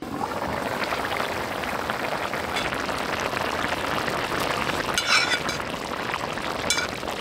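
Food cooking in a pan, a dense, steady sizzle, with two short clinks about five seconds in and near the end.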